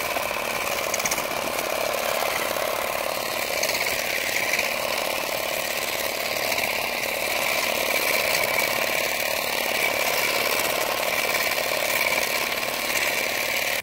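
Handheld cordless shear's small electric motor running steadily, its reciprocating top blade buzzing in an even whir as it cuts through thick shrub branches.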